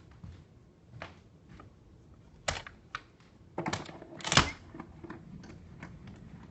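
A window being opened: a series of sharp clicks and knocks from the latch and frame, with a cluster of rattling knocks in the middle and the loudest knock just after.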